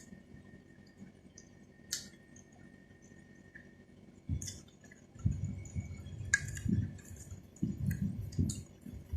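Close-miked eating and mouth noises: faint scattered sharp clicks and wet smacks, turning into louder, irregular low rustling and chewing sounds about four seconds in.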